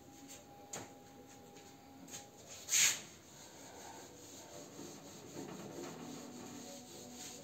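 Whiteboard eraser being rubbed across a whiteboard, wiping off marker writing. There is one short, louder scrape about three seconds in, then steady rubbing.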